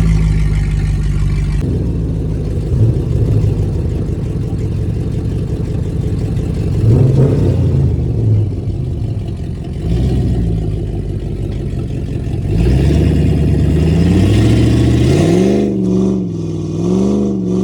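V8 engine running under throttle, its pitch rising and falling as it is revved in uneven surges, with a longer climb about two thirds of the way in and a few quick up-and-down revs near the end.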